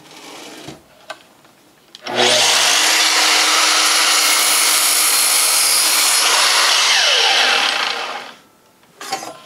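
Makita sliding mitre saw switched on about two seconds in and running loud and steady as its blade is brought down through a wooden board. Near the end the motor is released and spins down with a falling whine, followed by a few light knocks.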